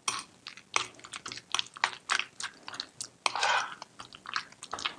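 Fork stirring diced pickle into mashed avocado in an enamel bowl: irregular wet squelches and quick clicks of the fork against the bowl, with one longer squelch a little past three seconds in.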